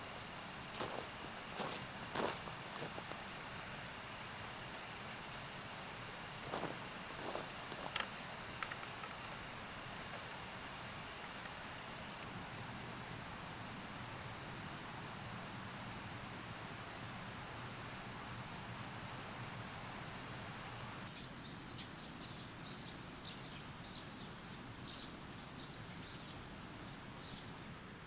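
Summer insects singing: a very high-pitched buzzing song that swells in regular pulses a little over a second apart, joined partway through by a second, slightly lower pulsing song. The highest song cuts off about two-thirds of the way in, leaving the lower one going. A few light knocks come in the first several seconds.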